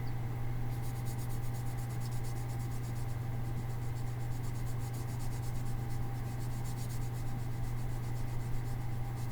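Wax crayon fill stick rubbed back and forth into fine cracks in wood veneer, a faint, rapid, scratchy stroking that starts about a second in. A steady low hum runs under it.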